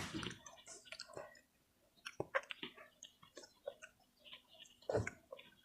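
A person chewing food close to the microphone: scattered soft wet mouth clicks and smacks with quiet gaps between them, and one louder knock about five seconds in.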